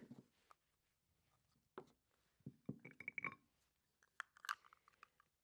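Faint, scattered clatters and knocks as baby carrots and cucumber slices are tipped from small ramekins onto a ceramic plate, with a busier cluster about halfway through.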